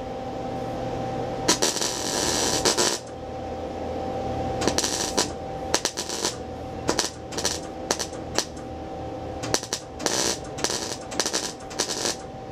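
MIG welder arc crackling on thin-gauge auto body sheet steel. There is one longer burst about a second and a half in, then a string of short trigger-pull bursts. The welder is stitching in tack-type welds and easing off the trigger so as not to burn through the thin metal.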